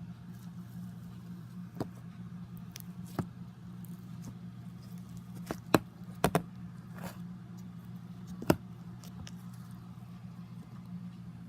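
Scattered sharp clicks and taps, the loudest a cluster about halfway through and another near the end, over a steady low hum.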